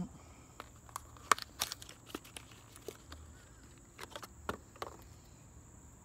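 Scattered sharp clicks and light rustling of handling noise, the loudest about a second in and more bunched near four to five seconds, over a steady high trill of crickets.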